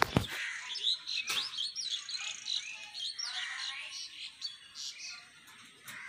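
Indian hill myna giving a rapid run of short, sharp chirps and whistles that thins out toward the end, opening with two sharp clicks.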